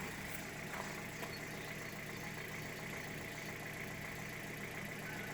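Hyundai Solaris petrol engine idling steadily as it warms up after a cold start, running on 5W-30 oil, with a light ticking of its fuel injectors.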